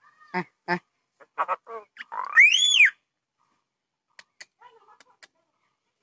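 Common myna calling: two short harsh notes, then a few more harsh notes, then a loud whistle that rises and falls about halfway through. A few faint clicks follow.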